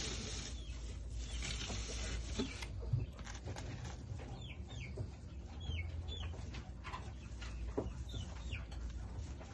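Gerbils rustling and scratching about in a pile of dry hay, many small crackles and scrapes. From about four seconds in, short high chirps that drop in pitch repeat every second or so.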